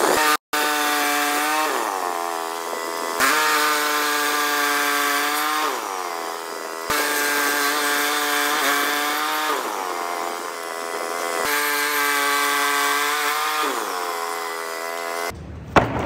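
Woodland Mills HM130MAX bandsaw mill running and its band blade sawing through a small log, a steady engine tone over the hiss of the cut, the pitch sagging at times under load; the sound breaks off and restarts several times. Near the end a thump as a piece of wood is set down on a table.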